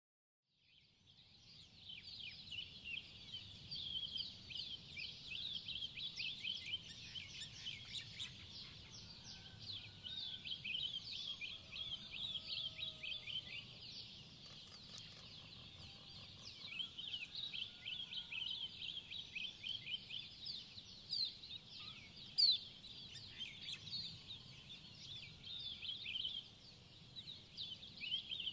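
A dense chorus of birds chirping and twittering without a break, fading in just after the start, over a faint low rumble.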